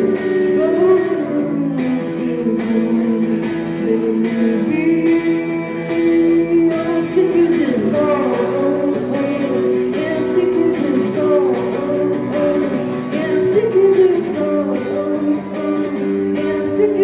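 A singer's voice carrying a melody over guitar accompaniment, performed live.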